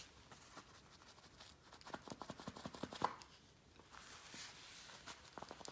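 Faint scattered clicks and light rustling from a dog's booted feet being handled and shifting on a hardwood floor, with a quick run of taps near the end.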